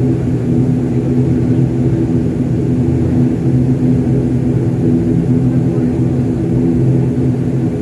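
Passenger plane's engines and rolling rumble heard from inside the cabin as it moves along the runway: a steady hum over a low rumble.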